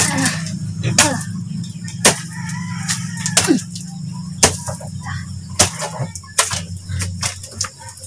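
Loose soil being scooped and tossed by hand, heard as a string of short scraping and thudding strikes. Chickens cluck now and then over a steady low hum that fades out near the end.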